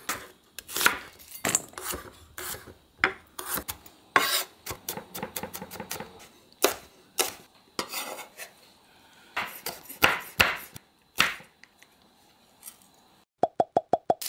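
Kitchen knife chopping carrot and then green chili peppers on a wooden cutting board: irregular sharp knocks of the blade on the board. Near the end comes a quick run of about six short beeps.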